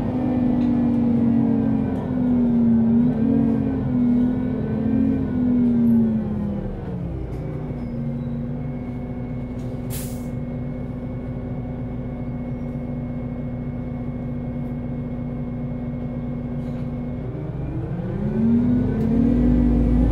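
Solaris Urbino 18 articulated bus's Euro 6 diesel engine pulling under load. At about six seconds the revs drop to a steady low run for some ten seconds, with one brief sharp noise near the middle. Near the end the engine revs up again as the bus pulls away.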